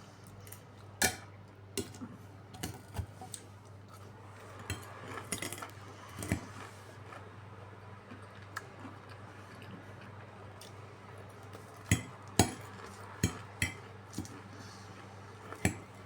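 Cutlery clinking and scraping against dishes while eating, in a dozen or so irregular sharp clinks, the loudest a cluster about twelve to thirteen and a half seconds in, over a steady low hum.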